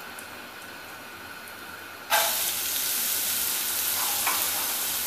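Shredded cabbage dropped into hot oil in a pot, setting off a sudden loud sizzle about two seconds in that carries on steadily as the vegetables start to fry over high heat. Before that only the faint hiss of the heated oil.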